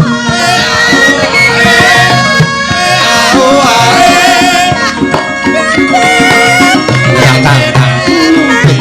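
Javanese gamelan music: held metallophone tones with a kendhang hand drum beating, and a sinden's wavering sung line over them.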